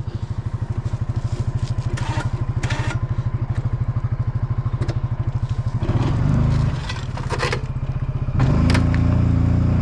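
Coleman UT400 UTV engine running with a steady low putter. It revs up louder twice, around six seconds in and again near the end, as the vehicle backs up to drag a felled tree.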